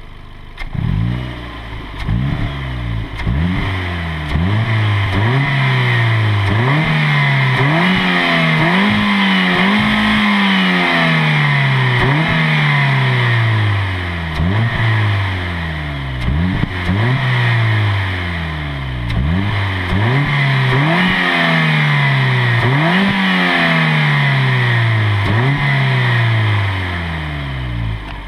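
Stock Ford Fiesta 1.25 16v Duratec inline-four engine revved again and again, each rev rising quickly in pitch and falling back more slowly, with a few longer, higher revs among the short ones.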